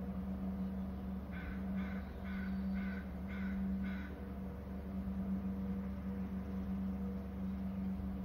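A crow cawing six times in a quick series, about two caws a second, over a steady low electrical hum from the camera's microphone.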